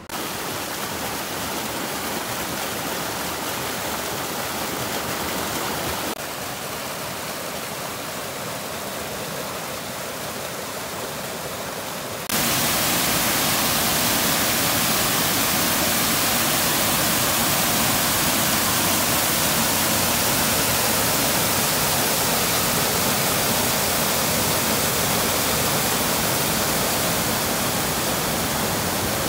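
Rushing water of a river running over small waterfalls and cascades: a steady rush that changes level sharply twice, about six and twelve seconds in, and is loudest from there on.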